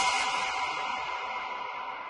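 Intro music fading out, its held tones dying away.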